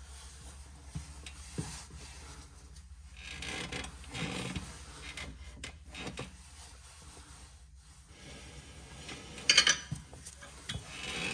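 Hands handling tools and suspension parts under a car: soft rubbing and scraping with small clicks, then a short clatter of knocks about nine and a half seconds in.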